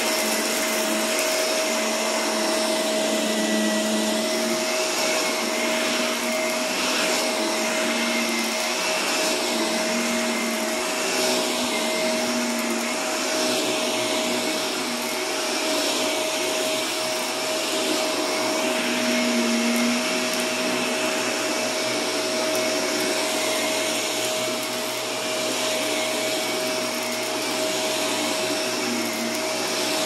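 Upright vacuum cleaner running steadily on carpet: a constant motor whine over rushing air, changing a little as the head is pushed along.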